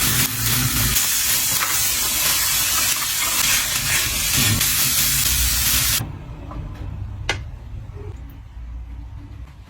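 Food sizzling in hot oil in a pan, a loud steady hiss that cuts off suddenly about six seconds in, followed by a few light clicks and knocks.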